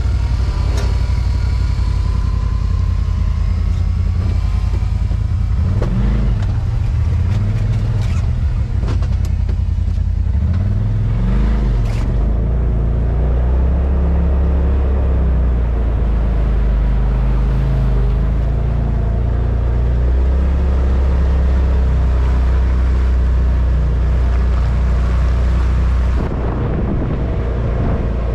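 Side-by-side UTV engine running as the machine drives across rough farm ground, the engine note rising and falling with the throttle between about six and twelve seconds in, with a few sharp clicks and knocks along the way.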